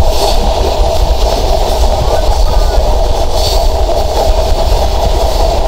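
Sundarban Express intercity train running on the track, heard from on board: a steady loud rumble and clatter of the wheels as the train rounds a long sharp curve.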